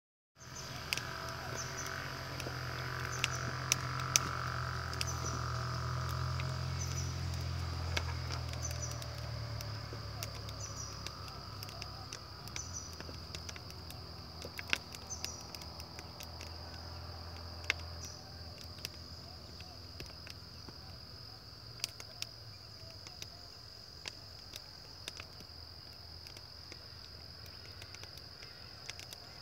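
Wood fire burning in a brick bottle-neck kiln, giving scattered sharp crackles and pops, over the steady high trill of crickets. A low rumble is strongest at first and fades out about halfway through.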